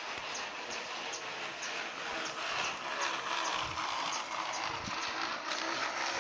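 Bicycle with a container jammed against the wheel spokes to make it sound like a motorcycle, rattling as it is ridden, with a regular ticking about three times a second.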